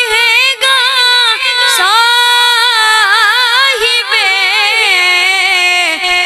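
A boy singing an Urdu naat solo in a high voice, with no instruments. He draws out long, wavering, ornamented notes, with a few short breaths between phrases.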